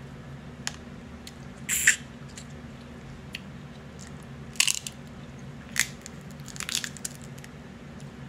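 Crab leg shells being cracked and snapped apart by hand, close to the microphone: five or so sharp cracks, the loudest about two seconds in.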